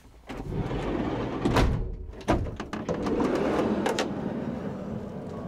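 A van's sliding side door rolling along its track and clunking, followed by knocks and handling noises.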